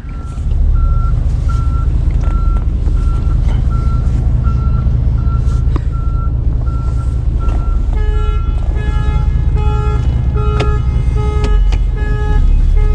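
Tow truck reversing: its engine running with a steady low rumble while a backup alarm beeps about twice a second. About eight seconds in, a second, lower-pitched beep joins the first.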